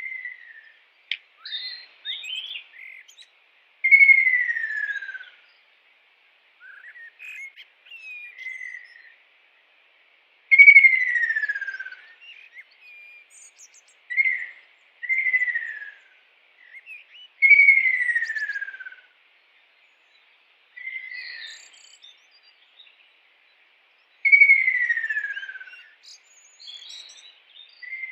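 A kingfisher calling: four long clear whistles, each sliding down in pitch, spaced several seconds apart, with shorter notes in between. A faint steady insect-like buzz runs underneath.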